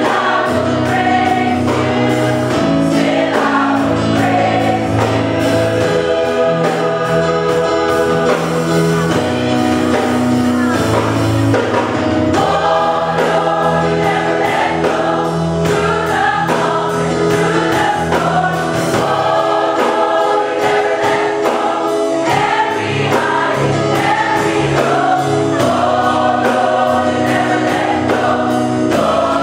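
Mixed choir of men and women singing a slow Christian worship song, with long held notes.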